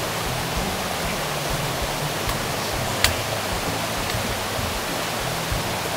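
Steady rushing of a waterfall and mountain stream, with one sharp click about three seconds in.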